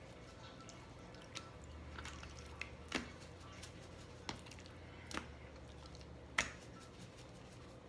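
Hand patting and rubbing ground black pepper into raw chicken thighs on a plastic cutting board, with a pepper shaker being shaken over them: soft wet slaps and taps at irregular intervals, about six or seven in all, over a faint low hum.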